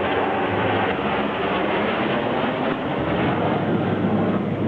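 Steady jet noise from Thunderbirds F-16 fighters in flight during the display, without pause.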